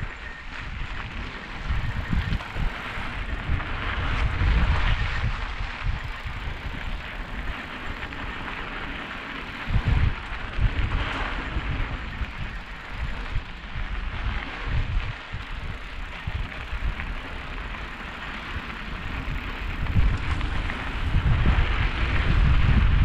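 Mountain bike riding a dry dirt trail: tyres hissing and crackling over grit, with gusty wind rumble on the microphone.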